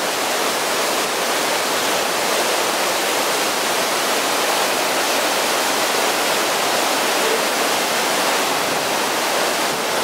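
Leke Leke waterfall's tall streams plunging into their pool: a loud, steady rush of falling water that does not change.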